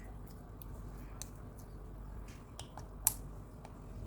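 Slime being squished and stretched by hand, giving scattered small sticky clicks and pops, one of them louder about three seconds in.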